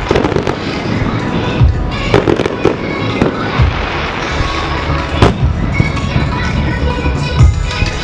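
Aerial firework shells bursting in quick succession: a constant crackle with repeated sharp bangs, the strongest about five seconds in and another near the end.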